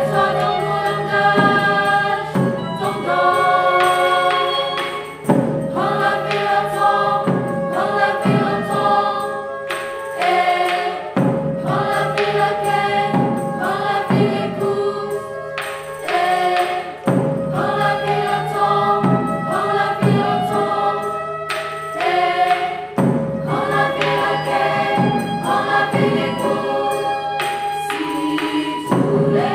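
Mixed choir singing sustained chords, accompanied by a Balinese bronze gamelan and other instruments, with regular percussive strokes under the voices.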